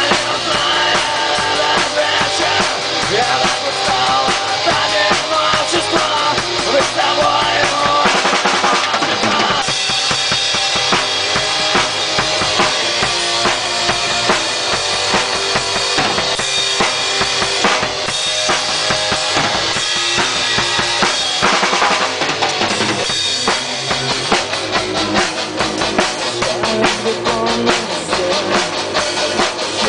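A rock band playing live at rehearsal: a drum kit with bass drum and snare driving steadily under guitar, loud and continuous.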